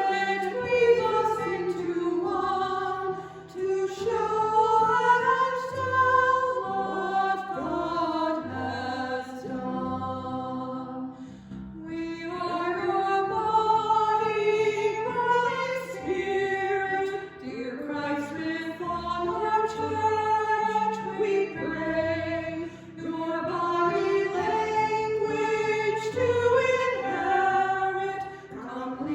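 A choir singing a slow hymn in phrases, with brief breaths between lines, over a low held accompaniment.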